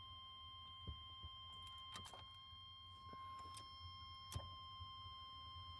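Near silence where an electric fuel pump should be buzzing: no pump sound at all, only a faint steady high-pitched whine and a few light clicks. The missing pump hum is the sign of a dead fuel pump, which the mechanic goes on to call bad.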